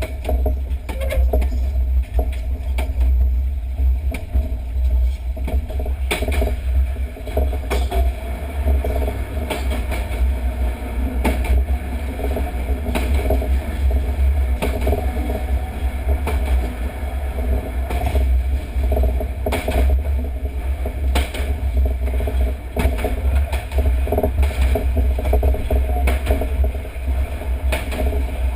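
Wind buffeting a microphone mounted on the outside of a moving former London Underground tube train, with a heavy, unsteady low rumble. The train's running noise lies beneath it, with scattered short knocks.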